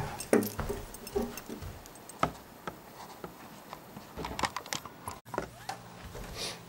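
Scattered light knocks, clicks and rustles at irregular times from a person moving about and handling things, with a low steady hum setting in after about five seconds.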